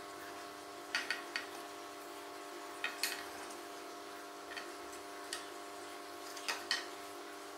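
Thin wooden frame pieces of a model boat hull clicking and knocking together as slotted parts are pushed into each other and set down on a stone worktop: a few short, sharp clicks in small clusters. A faint steady hum runs underneath.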